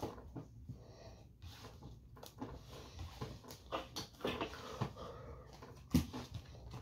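Playing cards being handled and laid down on a cloth-covered table: a scatter of soft taps and slides, with the sharpest tap about six seconds in.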